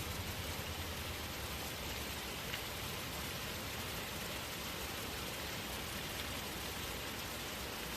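Small waterfall splashing steadily, an even rushing hiss with faint droplet ticks.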